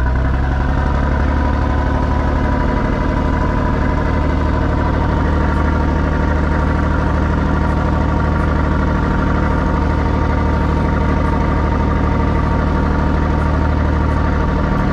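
An engine running steadily aboard a car ferry, a deep, even drone that holds the same pitch throughout.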